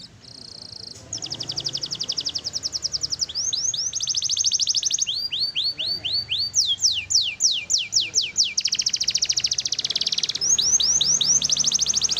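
Canary singing a long, loud song of rapid high trills of repeated notes, switching every second or two to runs of slower, downward-sweeping whistled notes.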